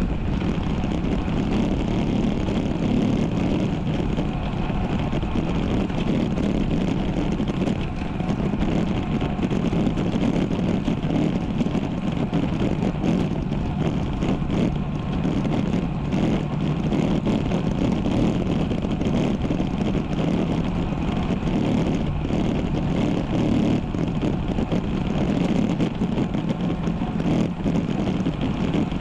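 Steady wind rush on a GoPro action camera's microphone while riding a road bike, mixed with the bike's rolling noise.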